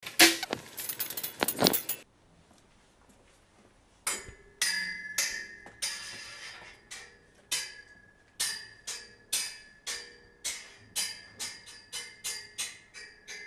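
A short rattling clatter of crockery, then a run of bright ringing clinks, like a spoon tapping a cup, about two to three a second and quickening toward the end.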